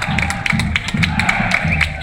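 Football supporters chanting together over big drums, which beat about three times a second, with scattered claps.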